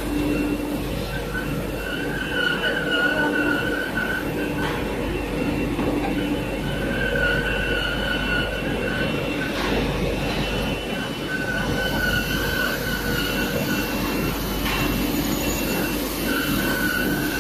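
Toilet and kitchen paper roll converting line running: steady factory machine noise with a high whine that swells and drops away every few seconds.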